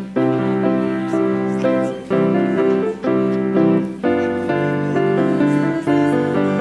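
Keyboard music: held chords over a bass line, the chords changing every half second or so.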